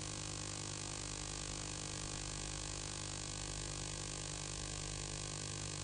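A steady, unchanging background drone of many held tones, with no events in it.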